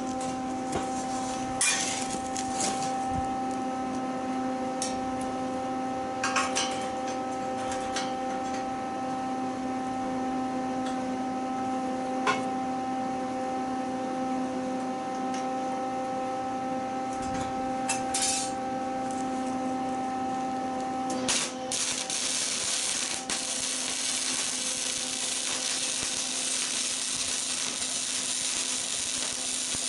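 A welder running with a steady hum, with a few sharp metal clanks and taps from handling steel. About 21 seconds in, the hum changes and a steady hiss comes in.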